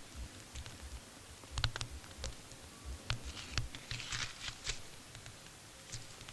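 Footsteps crunching and scuffing on stony ground, with scattered clicks of small stones and soft thumps. A patch of rustling comes about three to four seconds in as someone settles down to sit on the rocks.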